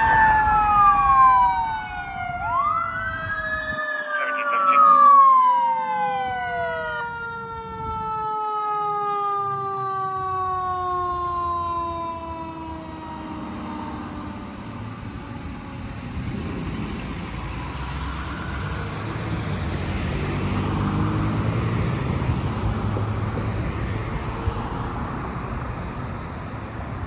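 A 2022 Pierce Enforcer fire engine's siren wails up and down as the engine passes, loudest about five seconds in. Beneath it a long siren tone falls slowly and dies away over about fifteen seconds. After that the truck's engine and tyre noise carry on as it drives away.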